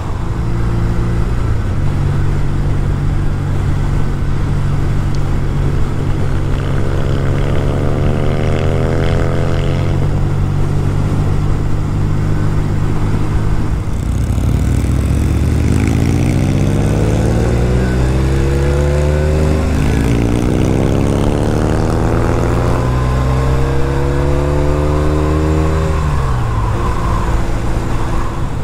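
Norton Commando parallel-twin motorcycle engine under way, running at a steady pitch at first. In the second half it pulls up through the gears, the pitch rising and dropping back at each shift, then settles to an even cruise near the end.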